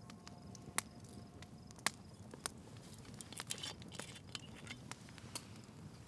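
Wood campfire burning, crackling with irregular sharp pops, the two loudest about one and two seconds in, over a low steady rumble.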